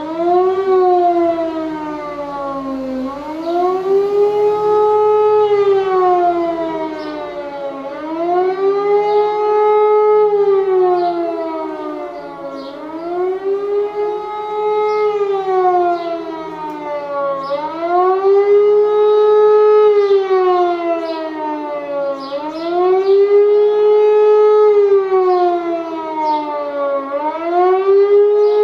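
E57 electric motor siren winding up to pitch in the first second, then howling with a steady rise and fall, about one swell every four and a half seconds. This is the one-minute rising-and-falling tone of the German 'Warnung der Bevölkerung' signal, which tells the public to go indoors and close windows and doors.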